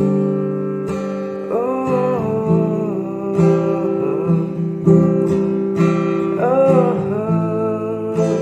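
Background music: a slow love song with strummed acoustic guitar and a singing voice, which holds a long "oh" a little over a second in.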